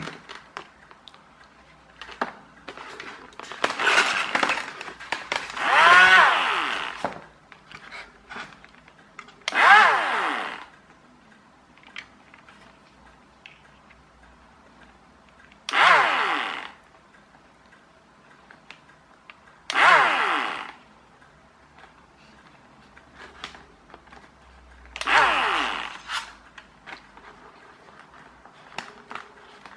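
The tiny electric motor and propeller of a Sky Hunter 230 RC flying wing's left-hand motor run in about six brief spurts. Each one whirs up suddenly, then winds down with a falling whine. The motor is cutting in and out, a fault traced to a loose solder joint on a motor wire at the receiver board.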